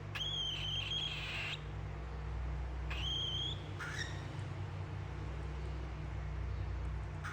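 Cockatiel whistling calls: one long level whistle at the start lasting about a second and a half, a shorter one about three seconds in, then a brief chirp, over a steady low hum.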